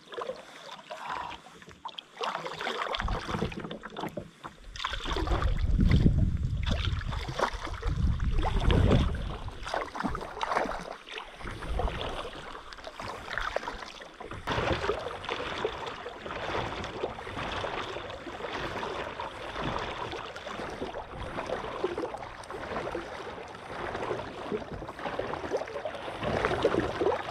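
Kayak paddle strokes, the blades dipping and splashing in the water one after another as the kayak is paddled across a lake. A loud low rumble runs for several seconds in the first third.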